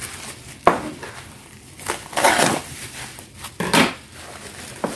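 Bubble wrap crinkling and rustling in several bursts as it is pulled off a baking tray.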